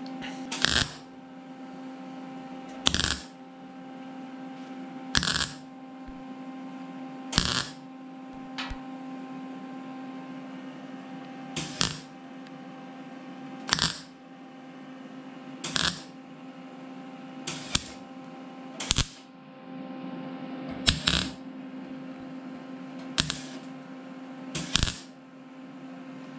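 MIG welder laying short tack and stitch welds along a sheet-metal patch-panel seam: about a dozen brief bursts, one every two seconds or so, over a steady hum.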